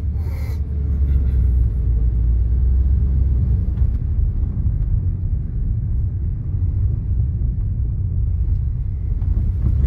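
Steady low rumble of engine and road noise inside the cabin of a moving Honda N-WGN.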